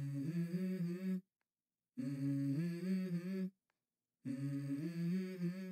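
Background music: a wordless vocal melody in three short phrases of held, stepping notes, each cut off by a complete silence.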